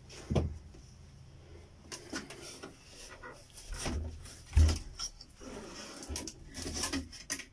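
Scattered knocks, thumps and rustling from handling a disassembled LCD TV's metal chassis on a cloth-covered table, with the loudest thump a little past halfway.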